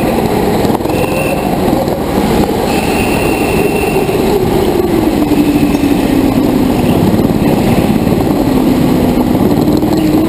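Racing kart's small engine running hard through a lap, heard from on board over a constant rush of noise; its pitch sinks over the middle as it slows for a turn, then climbs a little near the end.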